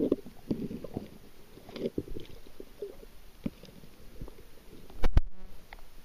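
Muffled underwater sound heard by a submerged camera: low rumbling water movement with scattered clicks and taps, and one loud knock about five seconds in.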